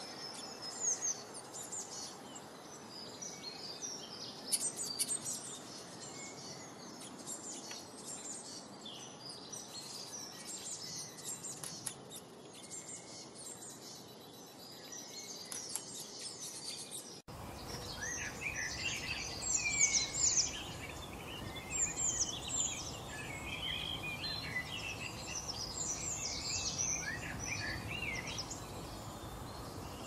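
Small songbirds chirping and singing, many short, high notes overlapping. About halfway through, the recording cuts abruptly to a fuller, busier chorus with lower calls and more background noise.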